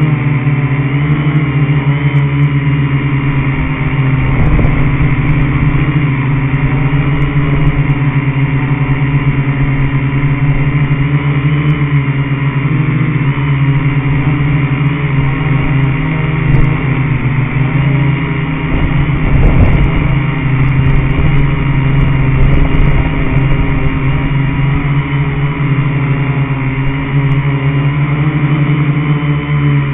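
Quadcopter's electric motors and propellers humming steadily as it flies, the pitch holding nearly constant, with a couple of brief louder rushes.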